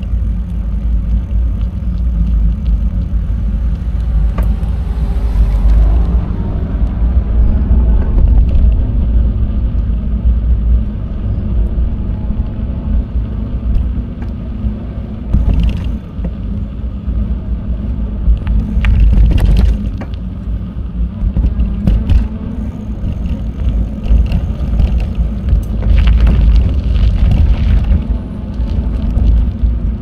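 Wind buffeting the microphone of a camera carried on a moving bicycle, with steady tyre and road noise and occasional sharp clicks and knocks over bumps.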